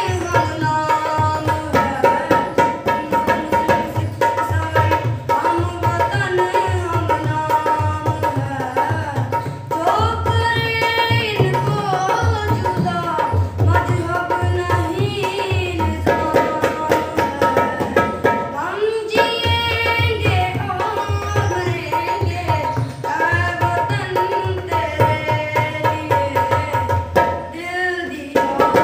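A boy singing a song, with a steady hand-drum rhythm accompanying him.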